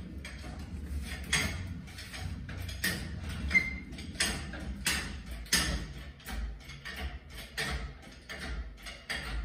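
Irregular clicks and knocks of hand work on a motorcycle chassis on a lift, roughly one every half second to a second, over a low steady hum.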